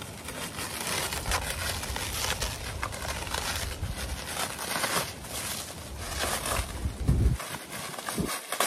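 Plastic wrapping crinkling and rustling as it is pulled off a rolled, compressed foam mattress, with a couple of dull bumps near the end.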